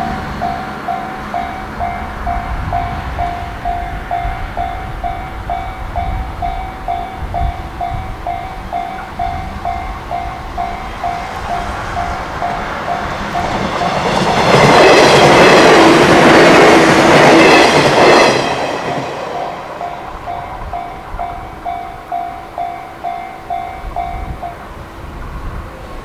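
Japanese level-crossing alarm bell ringing at about two strokes a second while a 115 series electric train runs through the crossing, loud for about four seconds midway. The bell stops a little before the end as the crossing clears.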